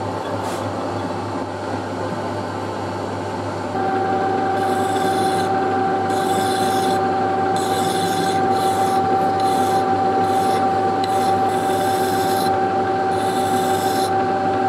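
Metal lathe running, its steady hum getting louder about four seconds in. From then on, a hand file is stroked against the spinning steel workpiece, roughly one stroke a second.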